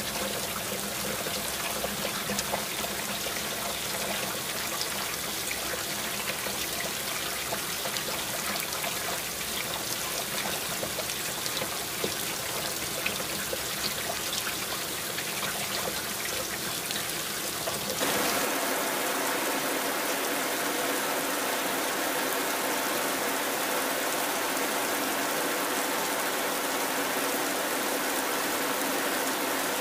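Heavy rainfall: a steady, dense hiss of falling water. About two-thirds of the way through it changes abruptly, the low rumble dropping out and the hiss becoming slightly louder and brighter, as at a cut between two rain recordings.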